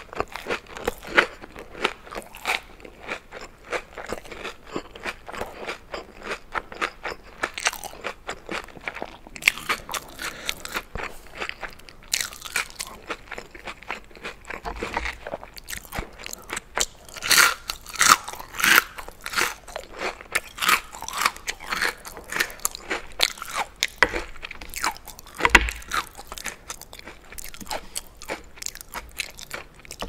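Close-miked chewing and crunching of crispy fried food: battered onion rings and breaded boneless chicken wings, in a run of crackly bites and chews. The loudest crunching comes just past the middle, right after an onion ring is dipped in cheese sauce.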